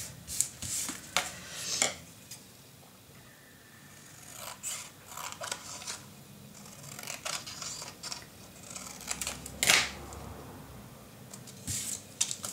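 Glued paper card being pressed flat, then lifted and turned over on a table: short paper rustles, rubs and light taps, the loudest rustle about ten seconds in.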